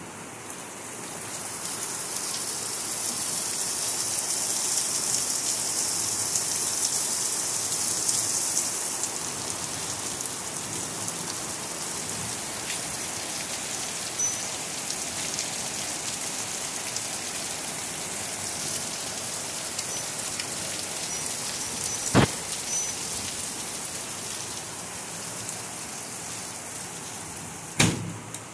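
Heavy rain pouring steadily, an even hiss that swells a second or two in and eases a little partway through. Two sharp knocks sound near the end, about six seconds apart.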